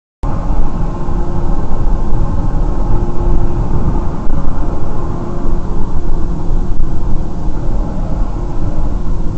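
Car driving along a multi-lane road, heard from a dash camera inside the cabin: a loud, steady engine and road rumble with a faint drone. It cuts in abruptly just after the start.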